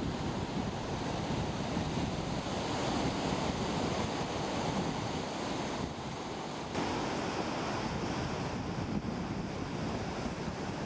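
Ocean surf breaking and washing over a rocky reef, a steady rush of waves, with wind buffeting the microphone. The sound dips briefly about six seconds in.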